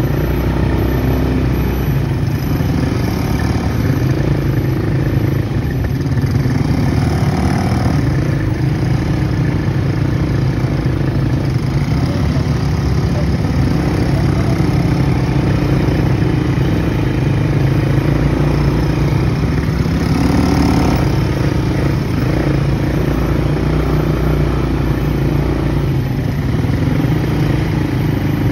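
ATV (quad bike) engine running steadily while riding.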